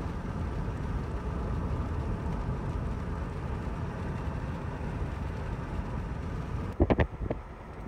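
Steady road and engine rumble of a moving car, heard from inside the cabin. Near the end the sound changes abruptly and a few short, loud knocks come close together.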